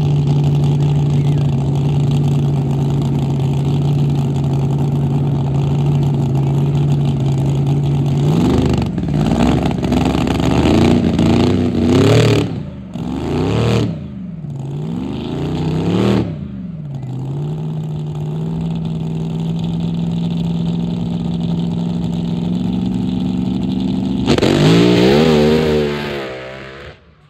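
1200-horsepower mud drag car's engine idling steadily, then revved in a series of quick throttle blips, settling into a steady higher idle. Near the end it launches at full throttle, the pitch climbing fast before the sound falls away as the car runs off.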